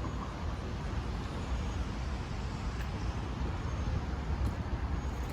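Steady low rumble of motor-vehicle noise, with no distinct events.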